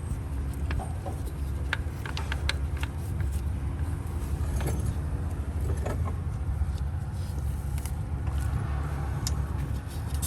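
A few light metallic clicks and clinks as a new oil pressure sensor is handled and threaded in by hand, over a steady low hum.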